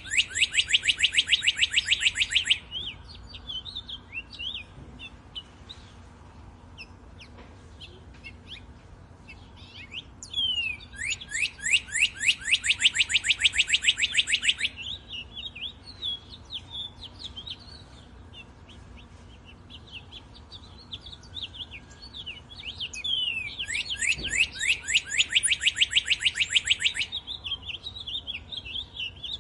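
Birdsong: one bird sings a loud, fast trill of rapidly repeated notes three times, about ten seconds apart, each bout lasting two to four seconds. Fainter scattered chirps from other birds fill the gaps.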